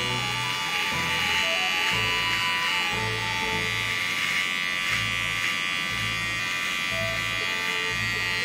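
Electric hair clipper buzzing steadily as it trims the short hair at the nape of the neck. Background music with a bass line and a light melody plays along.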